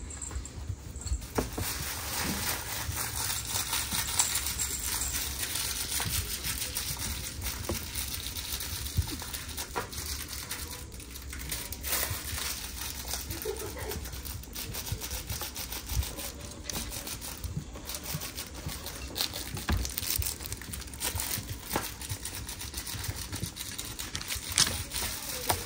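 Six-week-old West Highland white terrier puppies scuffling right at the microphone: steady crinkling and rustling with many small clicks and knocks.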